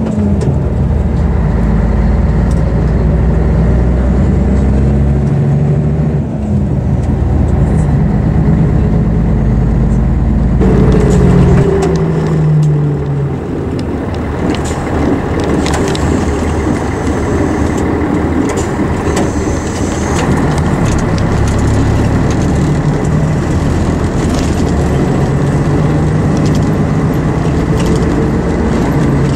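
Scania diesel engine of an Ikarus EAG 395 bus running under way, its pitch stepping up and down as the bus changes speed and gear. Scattered clicks and rattles are heard around the middle.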